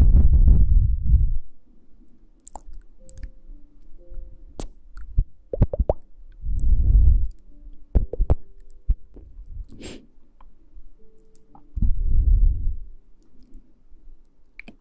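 Close-microphone ASMR rustling: three low, dull swells of rubbing against the microphone, near the start, about seven seconds in and about twelve seconds in, with scattered small clicks and a few faint steady tones between.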